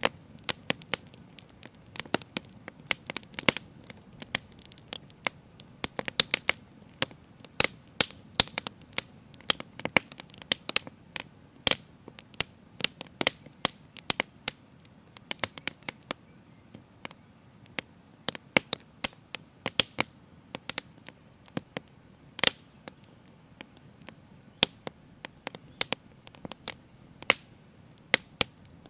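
Open fire crackling, with sharp irregular pops over a faint low hiss. The pops come thick and fast for the first half and grow sparser after about midway.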